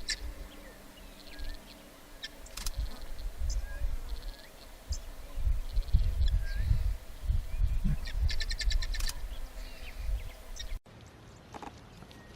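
Small birds chirping and trilling in the bush over a low, uneven rumble; the sound cuts off suddenly near the end.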